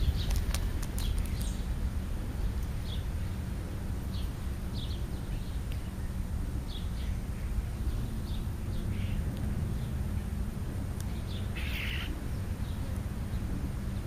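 House sparrows and young European starlings feeding, giving short high chirps every second or two, with a louder cluster of chirps near the end. A few sharp taps come in the first second or so, all over a steady low rumble.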